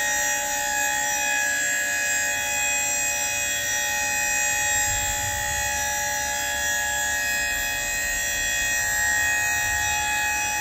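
Electric-hydraulic hoist pump of a Monroe dump body running with a steady whine of several held tones as the dump body is lowered.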